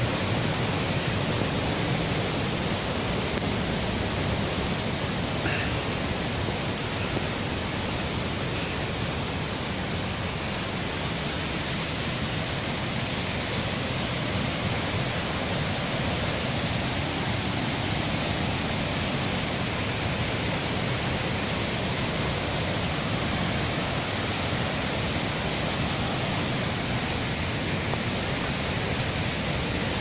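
Waterfall's falling water, a steady, unchanging rush.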